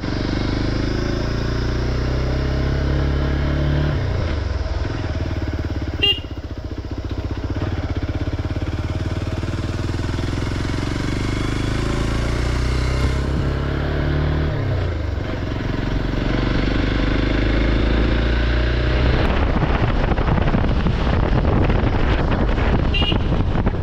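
Motorcycle engine running on the move, its pitch climbing and then dropping at gear changes about four and fifteen seconds in. A short sharp click about six seconds in, and loud wind on the microphone in the last few seconds.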